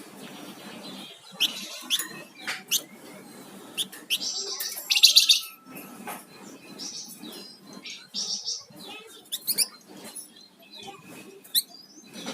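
A songbird known in Indonesian bird-keeping as a flamboyan singing in lively bursts: sharp chirps and quick high notes, broken by rapid rattling trills. The loudest trill comes about four to five seconds in, and a shorter one follows a few seconds later.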